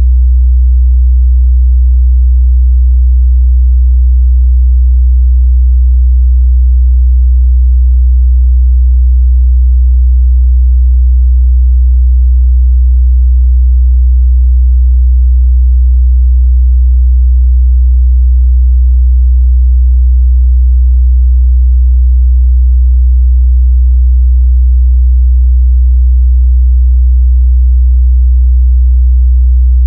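Steady, loud 62 Hz sine-wave test tone: a continuous low bass hum at one fixed pitch, used to check speaker, headphone and woofer response in the mid-bass.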